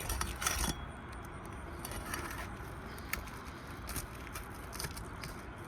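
Steel flat bar scraping and prying under asphalt roof shingles to break their seal, with a few scattered sharp scrapes and ticks.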